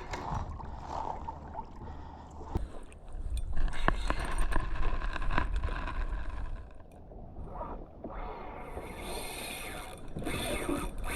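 Water lapping against a kayak hull, with wind rumbling on the microphone and a few light knocks; the sound swells for a few seconds in the middle.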